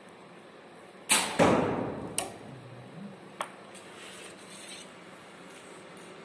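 A shot with a bow: a sharp snap as the string is released, then a second sharp hit about a third of a second later that rings down briefly, the arrow striking the target. A few lighter clicks follow.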